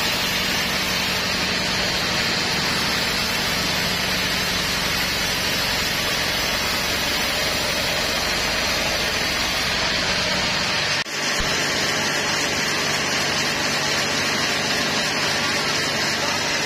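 Band sawmill running as it cuts through a teak log: a steady loud sawing noise over a low machine hum. About eleven seconds in the sound briefly drops and the hum falls away, then the steady noise continues.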